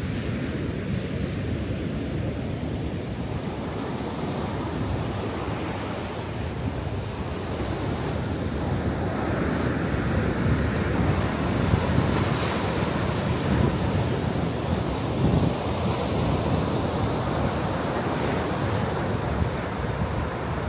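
Ocean surf breaking and washing up the sand in a steady rush that grows a little fuller and brighter about halfway through, with low wind buffeting on the microphone.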